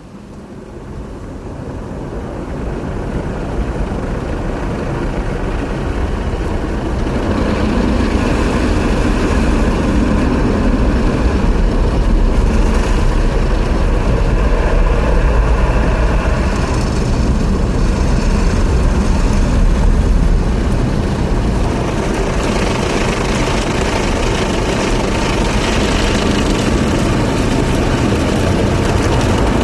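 Automatic car wash heard from inside the car: a loud, steady rumble and hiss of machinery and spray that swells up over the first few seconds, then runs on, its hiss changing in character several times.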